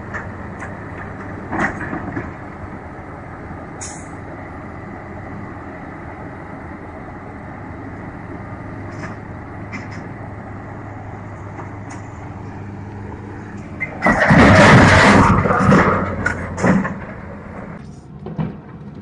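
Heavy diesel engine running steadily with a low hum and a few faint clanks. About fourteen seconds in, a loud burst of rough noise takes over for about three seconds.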